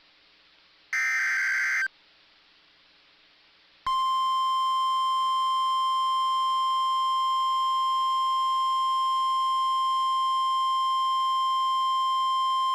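A burst of SAME digital header data, a shrill warbling screech about a second long, then a pause, then the NOAA Weather Radio warning alarm tone: one steady, high beep held for about nine seconds that cuts off suddenly. The tone signals that a warning message, here a severe thunderstorm warning, follows.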